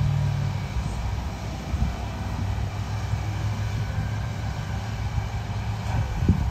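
Continuous low rumble that swells and dips irregularly, with a brief low thump near the end.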